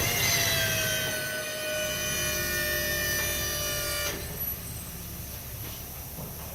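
Whine of a motor-driven tool that starts suddenly, sags slightly in pitch as it runs, and cuts off about four seconds in, over a steady low shop hum.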